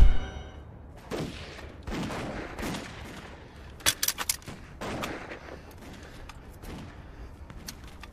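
Scattered gunfire: single shots at irregular intervals, with a quick run of several shots about four seconds in.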